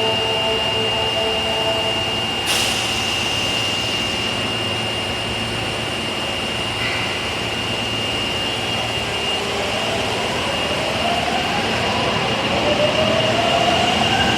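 Subway train at a platform: a steady high-pitched tone, a sharp thud about two and a half seconds in as the doors close, then the electric traction motors whining and rising in pitch as the train starts to pull away near the end.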